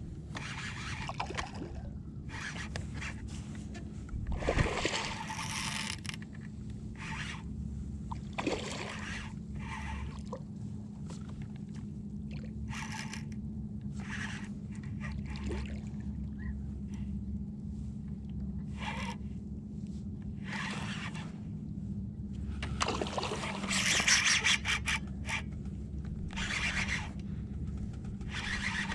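Water splashing and trickling around a kayak in short bursts every second or two, louder about four seconds in and again near the end, over a steady low hum.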